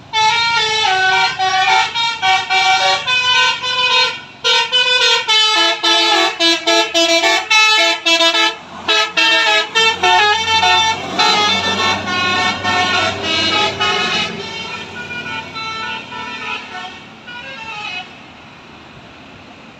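A bus's basuri horn, a set of roof-mounted trumpet horns, playing a quick tune of stepped notes, with the bus engine rumbling as it passes about halfway through. The tune fades out about three seconds before the end.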